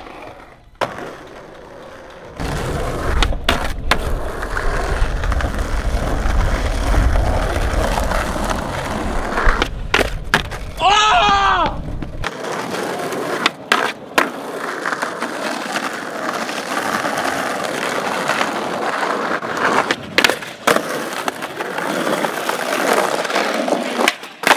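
Skateboard wheels rolling over rough pavement with a steady rumble, broken by sharp clacks of the board popping and landing. About 11 seconds in the rolling noise changes and lightens, as a new take begins.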